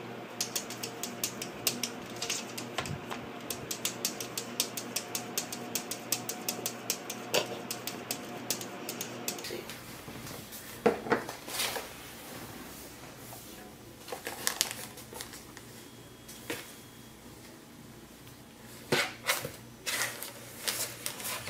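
Kittens' claws clicking and tapping against a mirror, several light clicks a second. After about nine and a half seconds this gives way to scattered crackles and taps as a kitten shifts about inside a tissue box.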